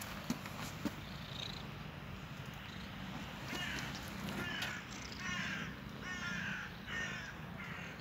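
A run of about six short, harsh animal calls in quick succession, starting about halfway through.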